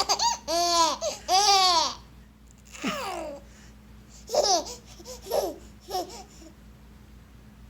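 A baby laughing in high-pitched squealing bursts. There are several quick laughs in the first two seconds, another near three seconds and a run of shorter ones between about four and six seconds, then it falls quiet.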